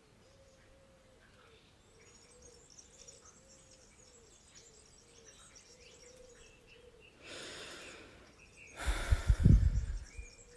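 Faint outdoor background with small birds chirping and a soft, repeated hoot-like tone. Near the end comes a short rush of noise, then a loud, low rumbling burst lasting about a second.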